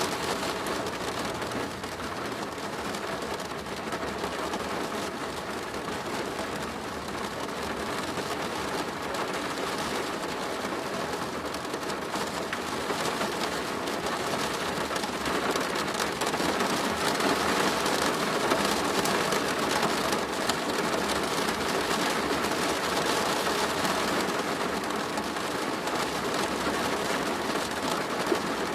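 Steady rain drumming on a plastic roof, a dense patter of drops that grows somewhat heavier about halfway through.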